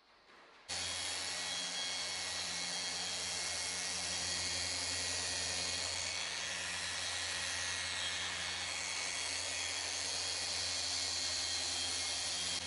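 Cordless FLEX 10.8 V mini polisher running steadily with its pad on a carbon-fibre rear spoiler: an even hiss over a low hum, starting abruptly about a second in.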